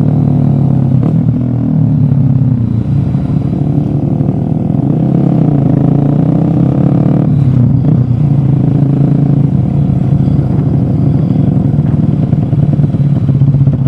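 Motorcycle engine running while riding, its pitch shifting up and down a few times.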